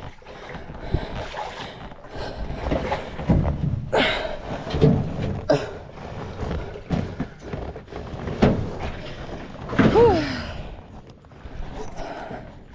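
Aluminum canoe carried overhead on a portage: the hull knocks and clunks irregularly as it is carried, with a ringing, metallic quality. A short falling pitched sound comes about ten seconds in.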